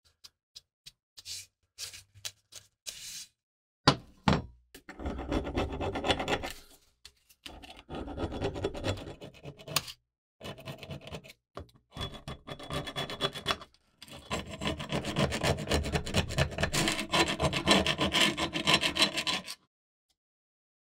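Hand scraping along a hatchet handle with a flat hand tool: a few short, light strokes first, then long runs of quick back-and-forth scraping with short pauses between them, stripping old coating and residue off the handle.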